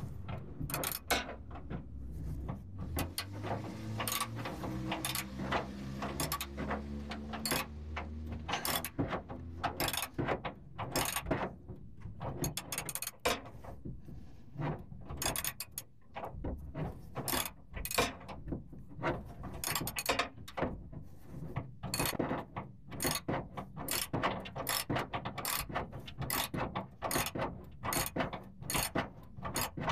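Socket ratchet wrench clicking in quick runs of strokes, tightening a rear shock mounting nut. A low hum runs under the first eight seconds or so.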